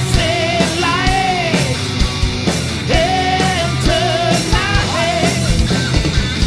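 Loud rock music from a band: a held melody line that wavers in pitch over a dense mix, with regular drum hits.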